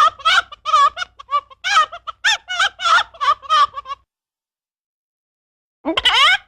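Chicken clucking: a quick run of short, pitched clucks, about three a second. It stops dead about four seconds in, and a single rising squawk follows near the end.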